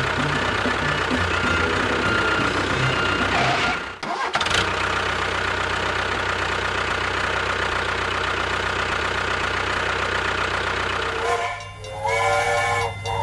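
Engine running steadily, broken off briefly about four seconds in; near the end, music with held tones comes in over it.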